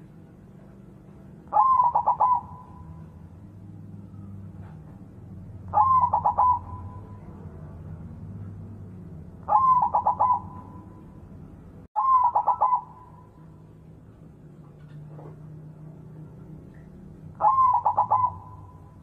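White zebra dove (perkutut) cooing: five short song phrases a few seconds apart, each a high opening note followed by a quick run of rolling coos.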